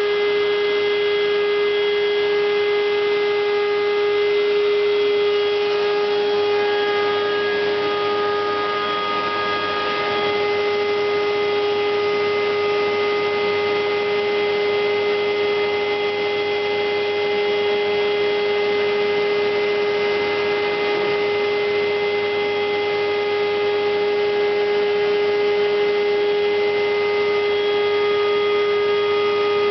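Homemade CNC router machine running: a steady whine with several higher tones above it, one of which comes in for a few seconds early on and then drops out.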